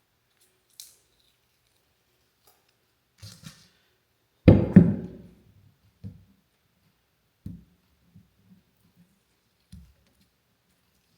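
Clamps being taken off a glued-up wooden blank: a loud knock with a short ring about four and a half seconds in, then a few lighter knocks as the clamps are handled and set down.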